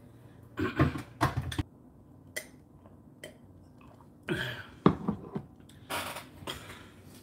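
A few knocks, clicks and rustles of a person handling things and settling into a chair, in short separate bursts, the sharpest a single click about five seconds in.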